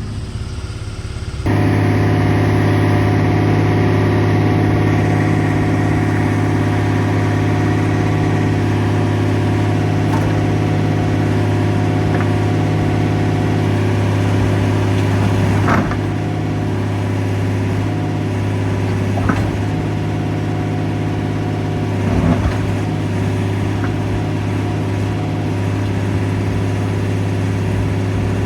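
Case 125B excavator's diesel engine running steadily as it digs, with a few short clunks of the work against rock about halfway through.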